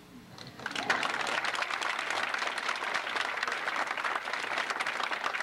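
Audience applauding: the clapping breaks out about a second in and carries on steadily as a dense patter of many hands.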